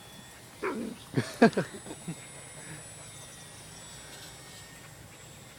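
A dog giving a quick run of short, excited yelps with falling pitch, starting a little over half a second in and over by about two seconds.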